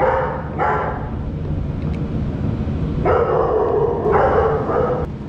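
A dog barking with drawn-out calls: two short ones in the first second, then two longer ones about three seconds in, seeking attention.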